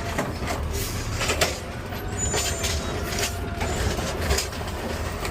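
Garbage truck engine running with a steady low rumble, heard from inside the cab, with several sharp clicks and knocks scattered through it and a faint steady whine for about a second midway.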